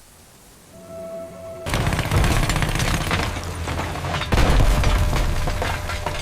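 Quiet for the first second and a half with a faint steady tone, then a loud, dense rumble with crackling crashes and booms over music, growing louder again a little past the middle.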